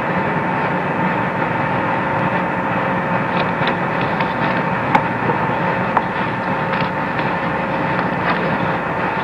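Open air-to-ground radio link of the Apollo 11 moonwalk carrying a steady static hiss with a couple of steady tones running through it, and a few faint clicks, the sharpest about five and six seconds in.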